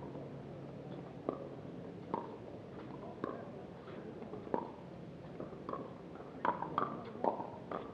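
Pickleball paddles striking a plastic pickleball back and forth in a rally: sharp, hollow pocks about once a second, quickening to four fast exchanges in the last two seconds.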